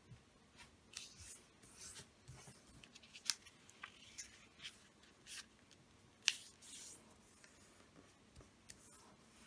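A sheet of origami paper being folded and creased by hand: soft crinkling and fingers sliding over the paper as its corners are folded in to the centre. There are two sharper crackles, about three and six seconds in.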